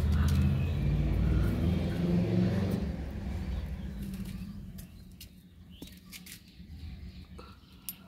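A low rumble that fades over the first few seconds, then faint scattered clicks as a rose-ringed parakeet picks rice grains from a hand.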